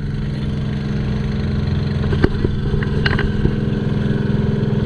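A motor engine running steadily at a low, even hum, with a few light clicks and knocks over it.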